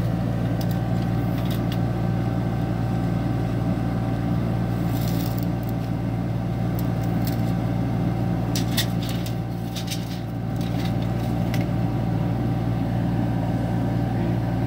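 Kubota U25 mini excavator's diesel engine running steadily at a constant speed, with a few faint light clicks around the middle.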